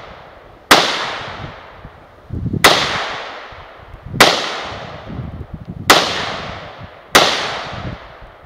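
Five shots from a Russian-made SKS semi-automatic rifle in 7.62x39, fired one every one and a half to two seconds. Each sharp crack trails off in a long echo.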